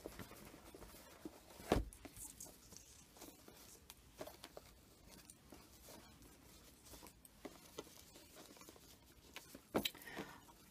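Quiet rustling and light handling as satin ribbon is tugged and a bow adjusted on a paper card box, with a sharper tap about two seconds in and another near the end.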